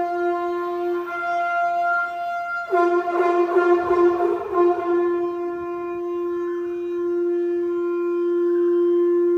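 Conch shell (shankh) blown in long, steady blasts on a single pitch. The first blast breaks off a little under three seconds in, and a second blast starts roughly, then is held steady and long.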